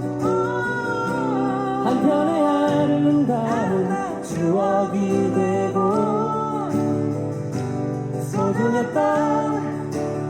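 Live acoustic pop song: voices singing a slow melody over strummed acoustic guitar.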